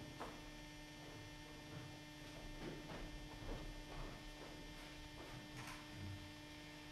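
Steady electrical mains hum, with faint, irregular soft thuds of footsteps as actors walk across a wooden stage.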